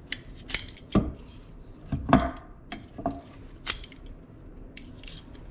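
Nylon webbing strap being cut away from a metal cam buckle: a string of sharp snips and clicks, with small knocks of metal on a wooden board.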